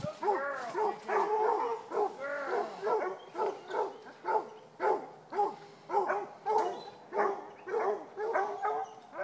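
Coonhounds barking at a steady pace, about two arching barks a second: the tree bark of hounds holding a raccoon up a tree.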